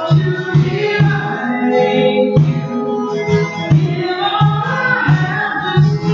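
Live worship music: acoustic guitar and congas playing a steady beat, with a voice singing over them.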